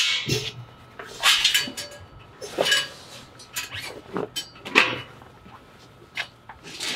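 Heavy-duty fabric grill cover rustling and swishing in about five irregular bursts as it is pulled down over a round gas wok cooker.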